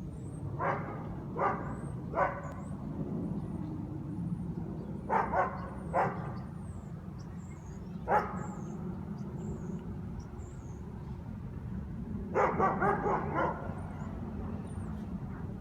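Guard dogs barking in irregular bursts: three barks in the first few seconds, three more around five to six seconds in, a single bark at about eight seconds, and a quick run of about five near the end, over a steady low background rumble.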